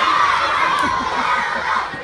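A large crowd of children shouting and calling out together, fading toward the end.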